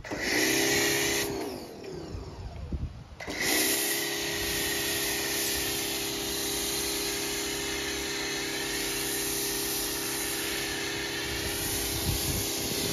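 Stanley electric pressure washer running with a snow foam lance, its motor hum and the hiss of the foam spray together. The motor winds down about a second in, then starts up again with a rising pitch about two seconds later and runs steadily.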